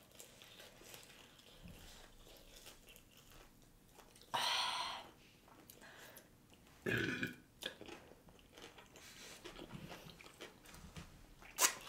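Quiet, close-miked chewing and mouth sounds of people eating fried chicken, with two louder short mouth noises about four and seven seconds in.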